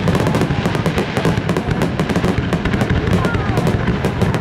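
Fireworks display: a dense, continuous barrage of aerial shells bursting and crackling, many sharp bangs a second with no let-up.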